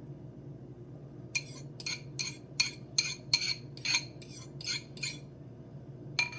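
A utensil clinking against a mixing bowl in an even rhythm, about eleven strikes over some four seconds starting just over a second in, as when the seasoned egg mixture is stirred or beaten.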